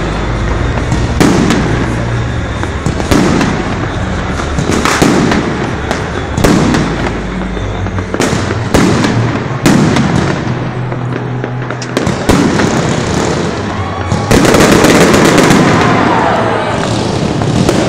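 Aerial fireworks going off overhead: a run of sharp bangs every second or two, then, about three-quarters of the way in, a sudden louder, dense crackling of many small reports as a crackling shell or barrage bursts.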